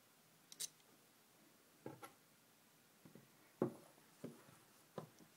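Faint, scattered taps and clicks of copper wire and needle-nose pliers being handled as the wire is bent and laid on a paper template on a tabletop: about five short knocks, the loudest a little past halfway.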